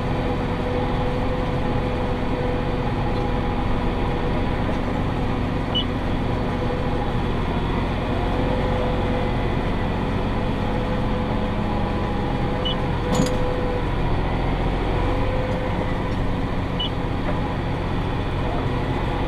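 Massey Ferguson 5610 tractor engine running steadily while pulling a John Deere 468 round baler, with a single sharp click about 13 seconds in.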